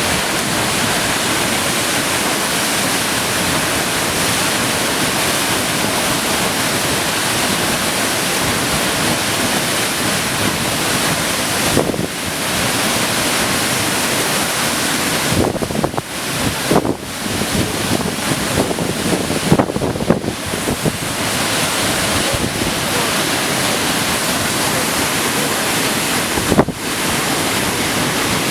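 Waterfall, a steady loud rush of falling water, with a few short breaks and jolts in the sound in the second half.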